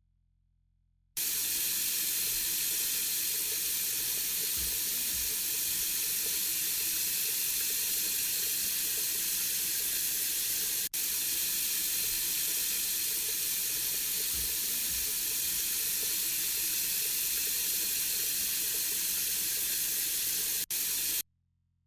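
LG ThinQ washing machine on its Quick 15 cycle, with water rushing steadily into it as it fills. The hiss starts abruptly about a second in, breaks off for an instant about halfway, and stops abruptly near the end.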